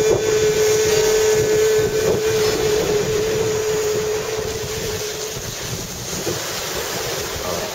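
Wind buffeting the microphone over breaking surf, with one long held musical note that fades away about five seconds in.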